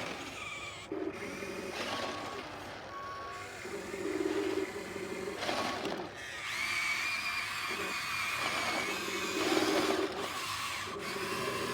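Small electric motors of 1/16-scale RC model excavators whining in repeated bursts as the machines move, with a higher steady whine for a few seconds past the middle and a few light clicks and knocks.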